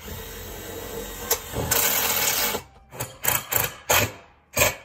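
Cordless drill driving roofing screws into steel roofing at the ridge cap: one run of about two and a half seconds, then several short bursts, about three a second, as the screws are seated.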